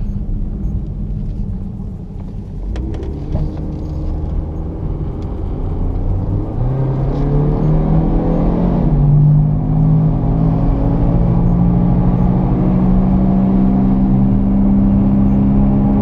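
Cabin noise of a 2001 Hyundai Accent's four-cylinder engine turning and then speeding up. The engine rises in pitch between about six and nine seconds in, then holds steady. Underneath is the growl of a bad right front wheel bearing, which gets louder with road speed.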